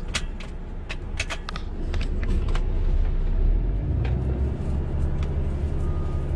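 Volvo truck's diesel engine rumbling low, heard from inside the cab as the truck is manoeuvred slowly; the rumble grows louder about two seconds in. Several sharp clicks sound in the first two and a half seconds.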